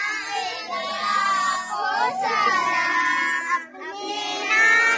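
A group of children singing together, with a short break about three and a half seconds in.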